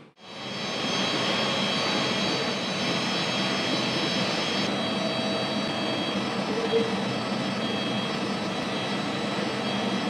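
Steady drone of workshop machinery with several thin, high whining tones over it, fading up at the start, with one brief louder blip about two-thirds of the way through.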